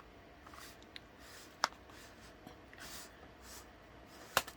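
Faint rustling and scraping of hands handling computer parts, with a sharp click about a second and a half in and a quick double click near the end.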